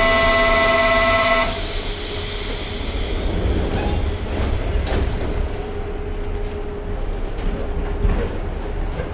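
Inside a former Tokyo Marunouchi Line Eidan subway car, a steady multi-tone warning signal sounds for about a second and a half. It is followed by a loud hiss of air that fades over a couple of seconds, over the car's continuous low running rumble.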